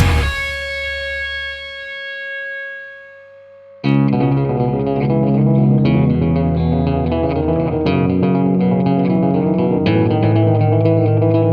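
Background rock music with distorted electric guitar: a held chord rings out and fades for a few seconds, then the band comes back in suddenly about four seconds in.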